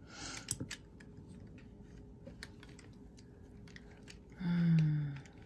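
A rustle with a few light clicks, then about four and a half seconds in a short hummed 'mm' from a person's voice, falling slightly in pitch.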